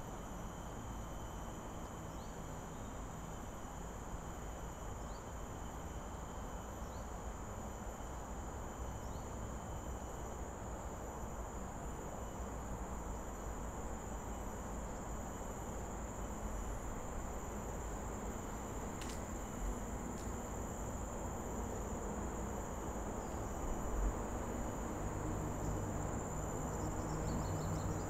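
Steady, high-pitched drone of insects over a low rumble. There is a sharp tick about two-thirds of the way in, and a low hum joins near the end.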